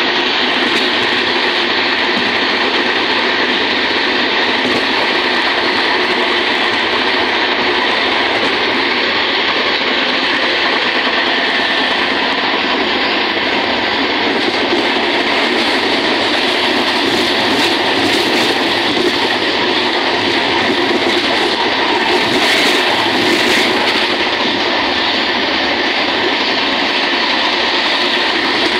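Passenger train running on the rails, heard from inside the carriage as a steady, loud rumble and rattle.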